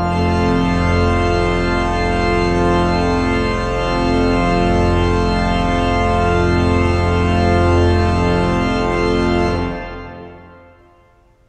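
Hull City Hall pipe organ (1911 Forster & Andrews, rebuilt by Compton in 1951) playing loud sustained chords over a held low pedal bass. The final chord is released about ten seconds in, and the sound dies away in reverberation.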